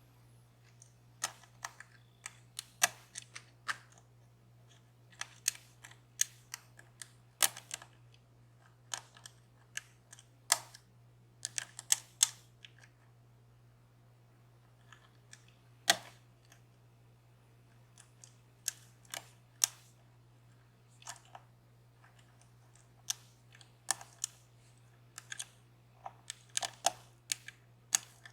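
Metal lock-picking tools clicking and scraping in the keyway of a DOM Plura dimple lock, in irregular sharp ticks that sometimes come in quick clusters and sometimes stop for a second or two, over a steady low hum.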